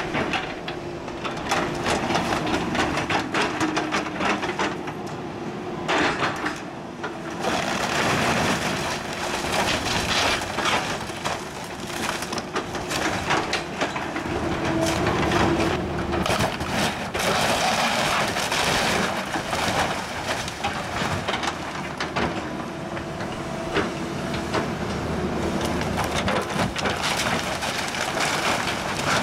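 Hydraulic excavator demolishing a wood-frame house: a steady run of cracking, splintering and crunching timber and siding as the walls are crushed and debris falls, over the hum of the excavator's engine.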